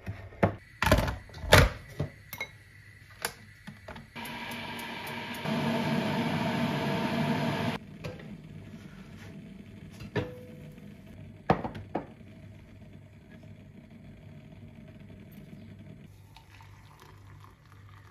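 Kitchen cooking sounds: a wire whisk clinking and knocking against a glass mixing bowl, then a steady hiss lasting a few seconds, then a few sharp clacks of a spatula in a small frying pan. A low hum runs underneath.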